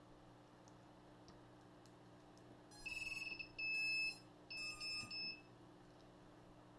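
Electronic beeps in three short groups, from about three seconds in to about five and a half: steady high pitched tones, the middle group the loudest.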